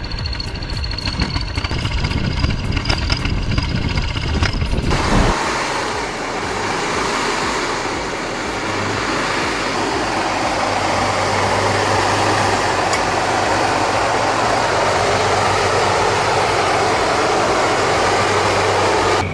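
Heavy vehicle engines running. About five seconds in, a pulsing machine sound with a high whine cuts to a steadier, denser engine sound with a low hum.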